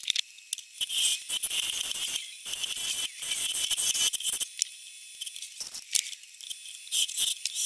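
A gouge cutting into a large spinning wood blank on a lathe: an irregular scraping hiss with rattling shavings, coming in uneven strokes with short pauses between cuts.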